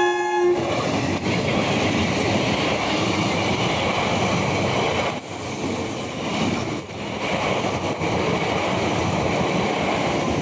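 Electric multiple-unit local train passing close by at speed: the end of its horn cuts off about half a second in, then the coaches' wheels rumble and clatter steadily along the track.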